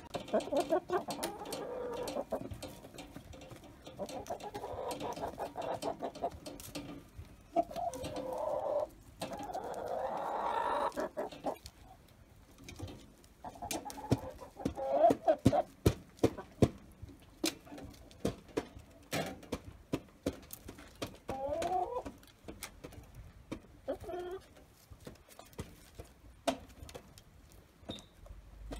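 Hens clucking and calling while feeding at a galvanized metal treadle feeder, with many sharp clicks of beaks pecking at the feed tray. The clucking is busiest in the first half, and the pecking clicks come thickest and loudest around the middle.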